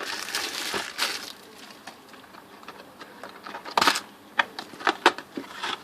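A booster box being unwrapped and opened by hand: plastic wrapping crinkles for about the first second, then after a quiet stretch come a handful of sharp clicks and taps of cardboard being handled.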